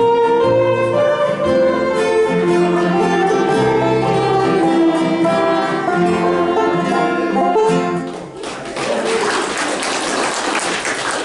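Fiddle, banjo and acoustic guitar playing the last bars of a tune together, ending about eight seconds in; audience applause follows.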